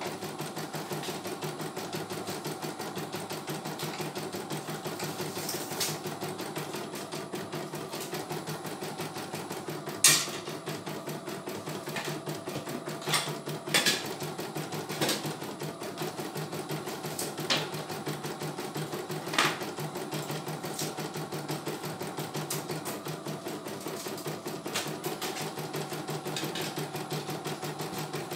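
CNY E900 computerized embroidery machine stitching a design, its needle running in a fast, even rhythm, with a sharp click now and then, the loudest about ten seconds in.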